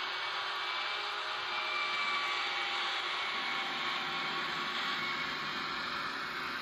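Model diesel locomotive running along the track: a steady whir from its small electric motor and wheels on the rails, with a faint thin whine that wavers slightly in pitch.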